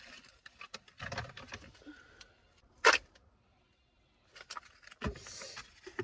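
Handling and rummaging noises inside a car: scattered rustles and light clicks, a short sharp knock about three seconds in, and a dull thump followed by a brief rustle near the end.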